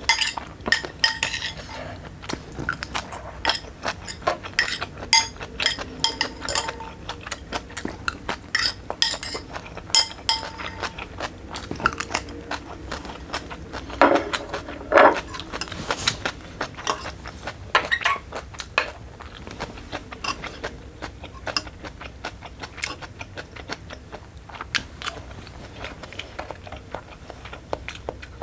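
Utensils clinking and scraping against a bowl while food is eaten: many irregular small clicks, some with a short ringing clink.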